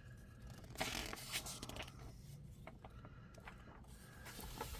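Paper rustling as magazine pages are handled and turned: a brief rustle about a second in, a few light clicks and rustles, and another rustle near the end.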